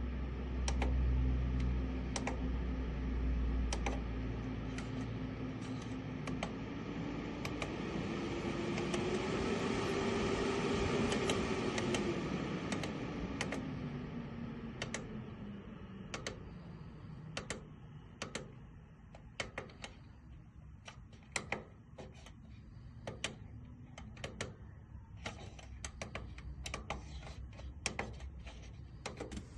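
Small electric register booster fan motor humming. Its pitch rises over several seconds around the middle and then falls back lower, over many light plastic clicks and taps.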